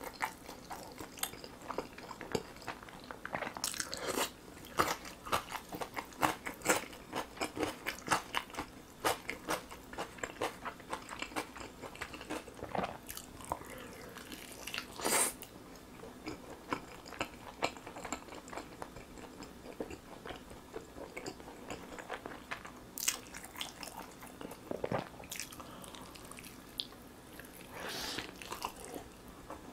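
Close-miked eating sounds: crisp crunching bites, dense and rapid in the first half, fitting chewing of pickled radish cubes, then sparser wet bites and chewing of a sauced roasted chicken leg.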